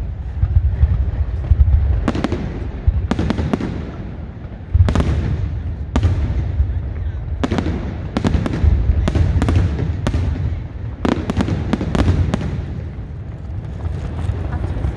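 Fireworks exploding: a long string of sharp bangs, often less than a second apart, over a deep continuous rumble.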